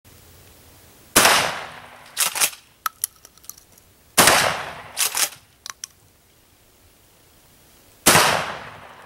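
Three shots from a 12-gauge Benelli Nova pump-action shotgun, a few seconds apart, each with a long echoing tail. After each of the first two shots comes a quick double clack as the pump is worked back and forward, followed by a few light clicks.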